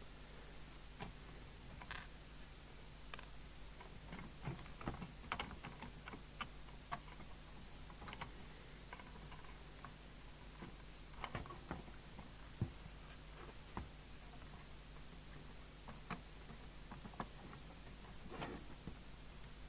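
Faint, irregular small clicks and taps of hand work on a radio's parts: small components, a short pillar and tools being handled and fitted. A faint steady hum sits underneath.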